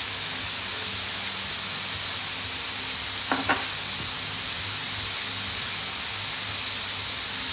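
Tomato-and-butter sauce sizzling steadily in a hot pan as it is stirred with a silicone spatula, with two short knocks of the spatula a little over three seconds in.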